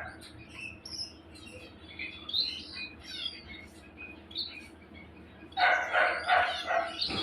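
Aviary finches chirping and twittering in short, high calls, with a small dog yapping about five times in quick succession near the end.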